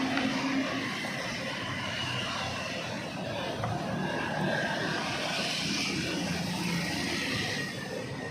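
Honda GX160 single-cylinder four-stroke engine on a Mikasa compactor running steadily.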